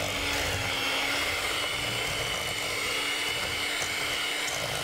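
Electric hand mixer running steadily at an even pitch, its beaters whirring in a stainless steel bowl as an egg yolk is beaten into the creamed butter-and-sugar cookie batter.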